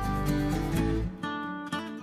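Background music led by strummed and plucked acoustic guitar over a bass line; the bass drops out about a second in, leaving lighter plucked guitar notes.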